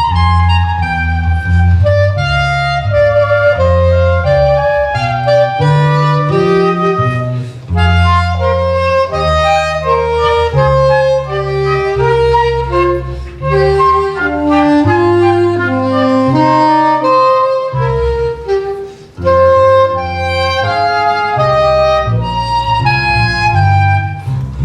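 Live instrumental ensemble playing a Baroque-style piece: a melody of short notes over a bass line that moves in steady held notes, with a brief drop in level about three-quarters of the way through.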